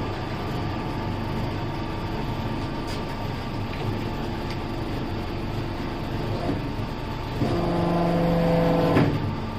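Hydraulic power pack of a Maskot MHHC-2D hose crimping machine running steadily as the crimping dies close on a hose fitting. About 7.5 s in, a louder, steadier hum comes in, and it ends with a sharp click about 9 s in as the crimp reaches its set size.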